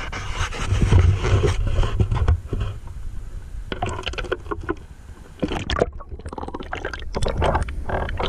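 River water splashing and sloshing around a waterproofed action camera as it is swung down and dipped through the surface of a shallow river. A low rumble of handling and wind on the microphone fills the first couple of seconds, and broken splashing takes over from about four seconds in.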